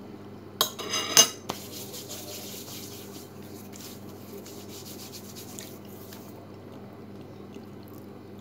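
A metal spoon clinking against a plate or bowl a few times about a second in, the loudest sound here. It is followed by a soft rubbing hiss for several seconds as hands are rubbed together.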